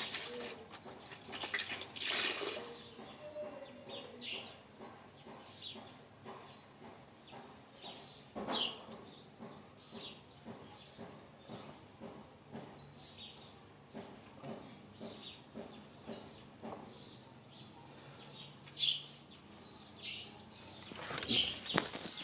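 Small birds chirping: short, high calls repeating about twice a second, with a few short knocks in between.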